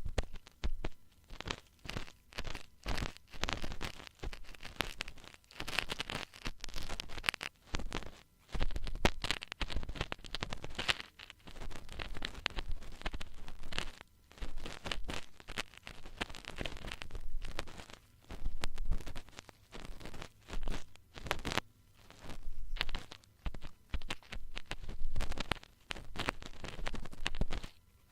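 Ear-cleaning tools scraping and rubbing close against the microphone: irregular bursts of crackling, scratchy strokes with short pauses between them.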